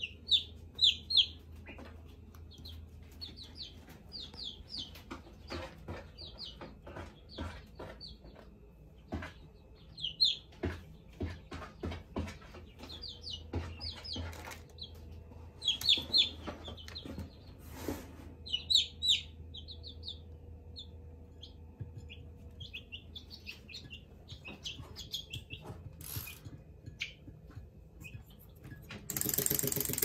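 Young chicks peeping in short, high, repeated chirps, often in quick twos and threes, while their beaks click and tap on ceramic plates and bowls as they peck at food. A brief rush of wing flapping comes near the end, over a steady low hum.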